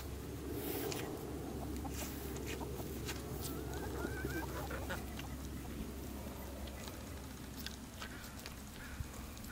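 Chickens clucking softly, with a short wavering call about four seconds in, over scattered crisp clicks from an alpaca crunching watermelon rind.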